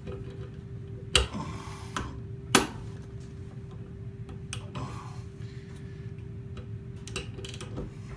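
Snap-on click-type torque wrench being reset by twisting its adjusting handle. Two sharp clicks come in the first few seconds, then a run of faint ticks as the setting is wound back down to 35 foot-pounds. A steady hum runs underneath.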